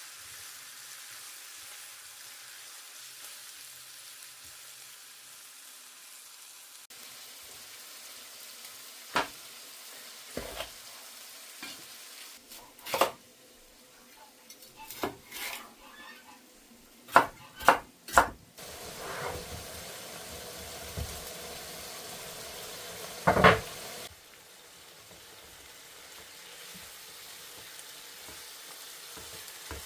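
Food sizzling as it fries in oil in a pan, with a spatula knocking and scraping against the pan several times as it is stirred.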